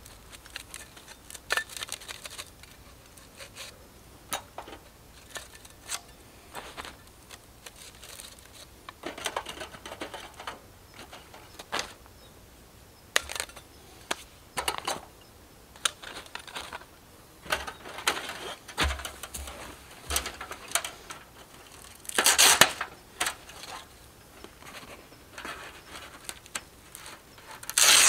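Irregular light clicks and clinks, with a few short rustling swishes, of small objects being handled.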